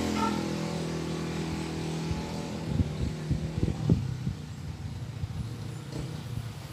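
A motor vehicle's engine hum fading away over the first second or two, then a run of soft knocks and taps around the middle as a makeup brush and eyeshadow palette are handled on the table.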